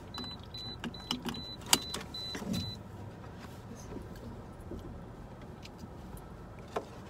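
A car's electronic warning chime beeping rapidly, about two and a half beeps a second, then stopping a little under three seconds in. Under it, steady road rumble in the car's cabin, with a few sharp clicks and knocks, the loudest about two seconds in.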